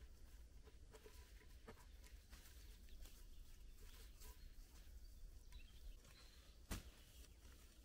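Near silence, with faint scattered scuffs and ticks of soil being worked by hand and then with a shovel, and one sharper click near the end.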